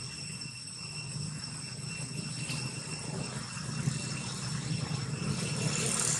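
Steady outdoor background: a low rumble like distant engine traffic under several thin, unbroken high-pitched tones like insects droning.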